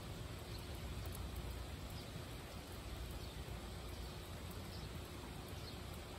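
Steady rain falling, an even hiss over a low steady rumble.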